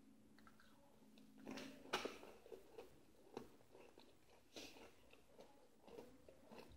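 Faint, scattered clicks and sticky crackles of homemade slime being stirred and handled, with the loudest click about two seconds in.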